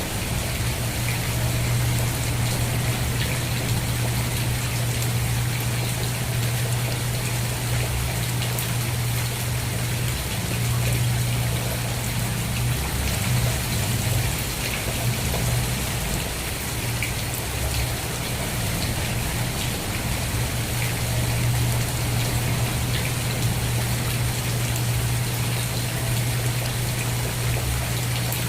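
Steady rain: an even hiss with many separate drops ticking through it. Underneath runs a steady low hum.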